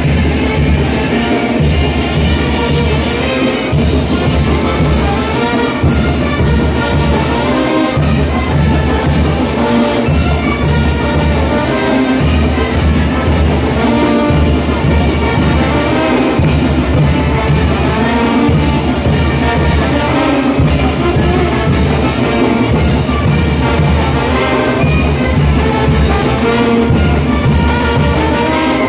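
Brass band playing a chinelo dance tune: trumpets and trombones over a steady bass-drum beat.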